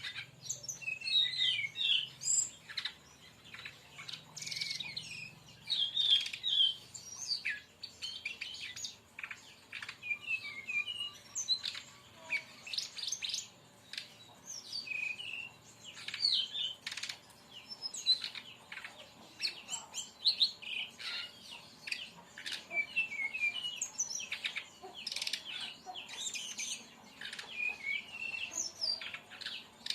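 Brown-chested jungle flycatcher (sikatan rimba dada coklat) singing its fast 'tembakan' burst song: phrase after phrase of quick, high chirping and twittering notes with short gaps between.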